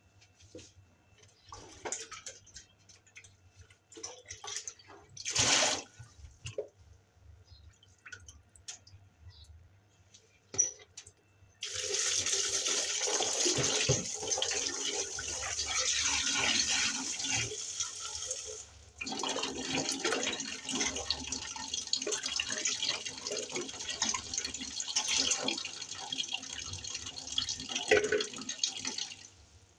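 Dishes and metal pans clinking and knocking as they are handled at a kitchen sink. About twelve seconds in, a tap starts running steadily as the dishes are rinsed, breaking off briefly about two-thirds of the way through before running again.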